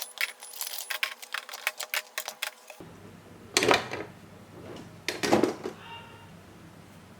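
Rapid clicking and clattering of toy spinning tops being handled and knocking together for about the first three seconds; then, after an abrupt cut, two loud whooshing swells about a second and a half apart.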